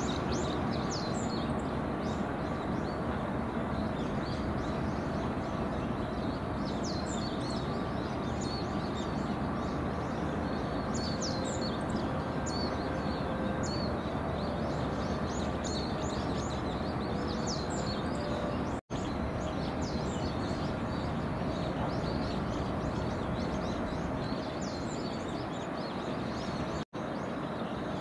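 Steady background noise with many small birds chirping in short, high calls throughout. The sound cuts out for an instant twice in the last third.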